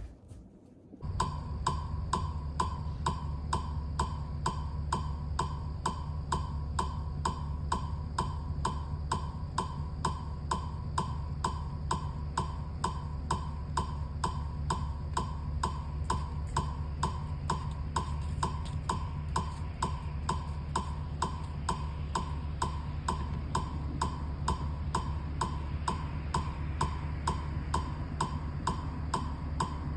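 A metronome ticking at a steady fast tempo, about two to three clicks a second, over a steady low rumble.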